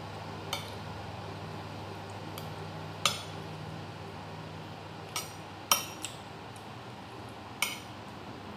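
Metal fork and spoon clinking and scraping against a plate while eating: about six short, sharp clinks spaced a second or two apart, the loudest a little past halfway, over a steady low hum.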